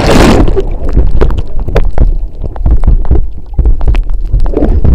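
A kayak capsizing with a splash, then muffled rumbling water with dull knocks as the paddler, upside down, tries a hand roll that fails to bring him up.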